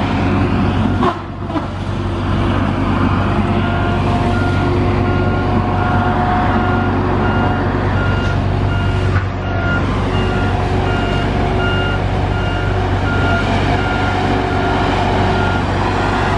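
Heavy diesel engines of a log truck and logging machinery running steadily. A back-up alarm beeps over and over from about four seconds in.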